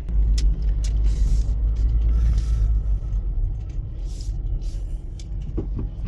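Inside a Lada Largus's cabin: a low engine-and-road rumble as the car pulls away and drives over a sandy dirt track. The rumble is heaviest in the first half, with scattered ticks and a few brief patches of hiss.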